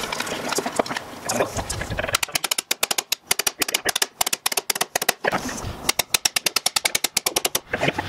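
Hammer striking the tabs of a sheet-metal forge box, metal on metal: a few scattered taps at first, then two long runs of quick, even strikes, several a second, starting about two seconds in and again about six seconds in.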